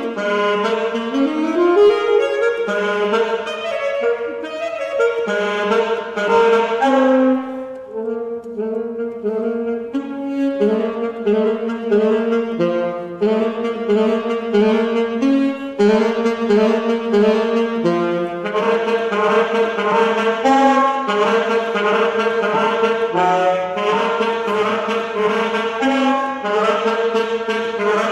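Solo saxophone playing a fast, rhythmic line that leaps back and forth between low and high notes.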